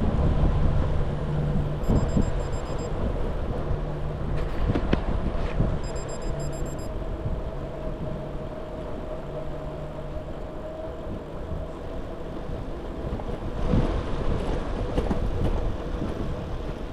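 Wind buffeting the microphone and tyre rumble of a bicycle riding on a road, with a steady hum underneath and brief bursts of faint high ticking about two and six seconds in.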